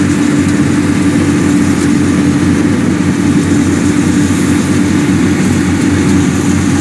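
Kubota PRO75G rice combine harvester running steadily, its 75-horsepower four-cylinder engine giving an even drone with a strong, constant hum.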